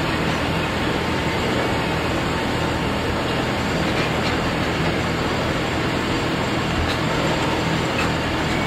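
Loaded ballast hopper wagons rolling steadily past, their wheels running on the rails.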